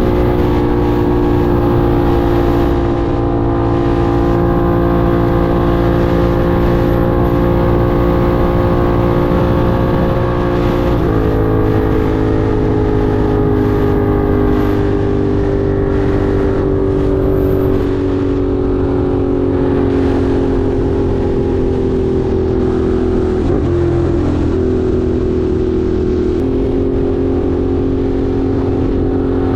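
Ducati Monster 1200 R's V-twin engine running steadily while riding. Its pitch steps down about eleven seconds in and then sinks slowly, dips briefly and picks up again near the end.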